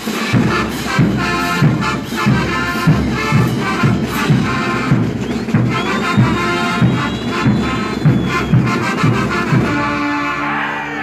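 Mexican banda music: brass playing a tune over a steady beat of about two strong low pulses a second, closing on a held chord near the end.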